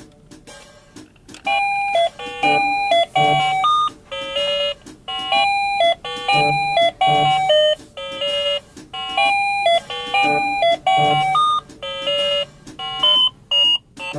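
An electronic toy jingle: a simple melody of bright beeping tones, starting about a second and a half in, with soft low thuds under some of the notes, as from the Anpanman talking toy refrigerator's sound chip.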